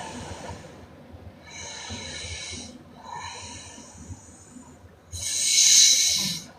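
A sleeping woman snoring: a run of breathy, noisy breaths, each a second or so long, with the loudest and longest about five seconds in.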